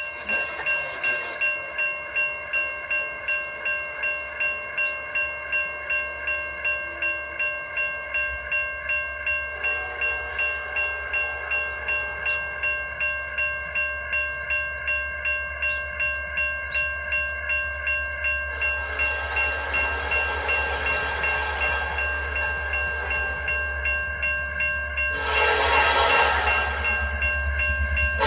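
Railroad grade-crossing bell ringing steadily, about two strikes a second. Near the end, the horn of the approaching Norfolk Southern officer-car special's lead locomotive, the Penn Central heritage unit, joins in.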